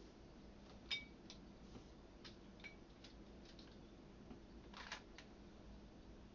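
Near silence broken by a few faint clicks and taps, about five, with one short scrape-like rustle near the end: kitchen containers and utensils being handled.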